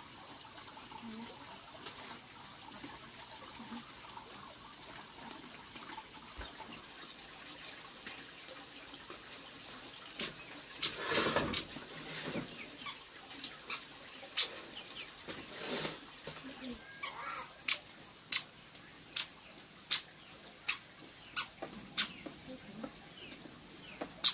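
A run of sharp knocks over a steady hiss, sparse and irregular at first, then evenly spaced at a little more than one a second through the second half.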